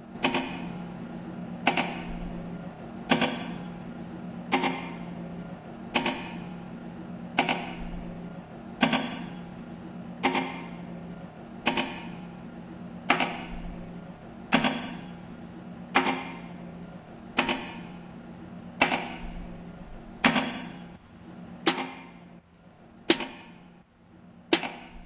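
Live electronic sound art: a sharp percussive click repeats steadily about every second and a half, each with a short decaying tail, over a low steady drone.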